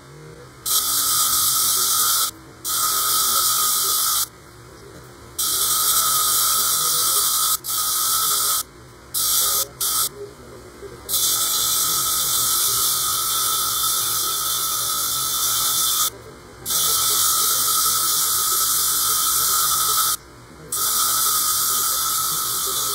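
Rough azeztulite stone being wet-ground on a spinning lapidary flat lap disc: a loud, gritty high hiss with a steady whine, cutting off sharply about eight times as the stone is lifted off the disc and coming straight back when it is pressed down again.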